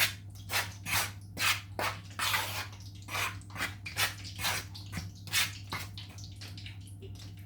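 Spoon stirring seasoned flour in a bowl: quick scraping strokes about twice a second that die away about six seconds in, over a steady low hum.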